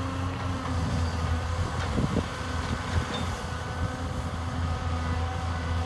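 Caterpillar 320 hydraulic excavator's diesel engine running steadily, with a couple of short clunks about two and three seconds in.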